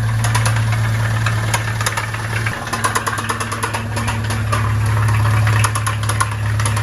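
Car engine running with a clear, rapidly repeated knock: rod knock from play in worn-out connecting-rod bearings.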